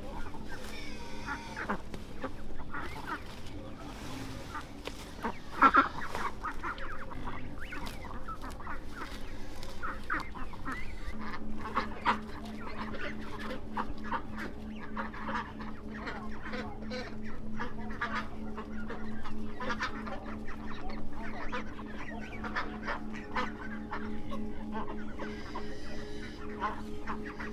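Farmyard poultry clucking and calling in many short, scattered calls, with one louder call about six seconds in. A steady low hum joins about eleven seconds in.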